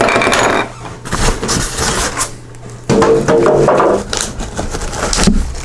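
Stainless steel and plastic parts of a new electric meat grinder clattering and knocking as they are unpacked and handled, loudest right at the start and again about three seconds in.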